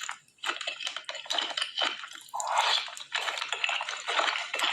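Close-up wet eating sounds: soft food squishing and being chewed in the mouth, a quick run of short smacks and clicks.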